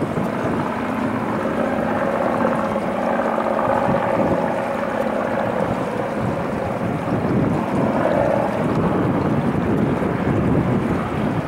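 Four CFM56 turbofan engines of an Airbus A340-300 running at taxi idle: a steady jet rush with a faint held whine, and some wind on the microphone.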